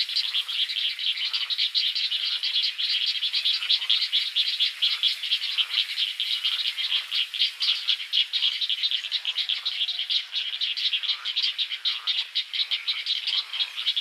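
Great egret chicks giving a fast, unbroken ticking chatter of begging calls, many ticks a second.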